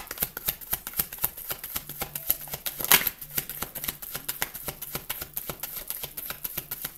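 A tarot card deck being shuffled by hand: a rapid, uneven run of soft card clicks and slaps, with one louder snap about three seconds in.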